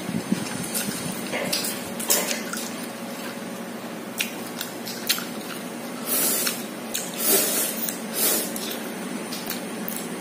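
Close-up wet eating sounds of a person chewing and slurping instant noodles: moist smacks and clicks throughout, with a few longer slurping noises past the middle.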